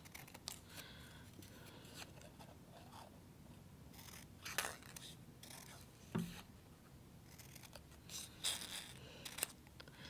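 Small craft scissors cutting construction paper: a few quiet snips, spaced irregularly.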